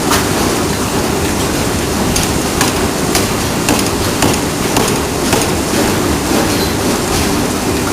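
Ring rolling mill running: a steady, loud mechanical drone with irregular sharp metallic clanks, roughly every half second.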